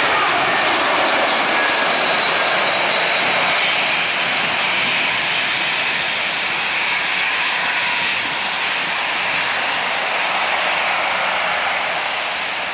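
Jet noise from an Airbus A320-232's IAE V2500 turbofans as the airliner passes low on landing and rolls out on the runway. It is a loud, steady rush with faint whines on top. It eases slowly and loses its hiss about five seconds in as the aircraft moves away.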